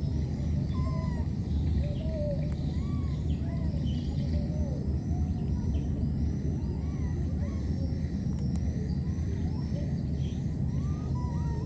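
Outdoor natural ambience: many short animal calls scattered throughout, each rising and then falling in pitch, over a steady low rumble, with a repeated high chirping above.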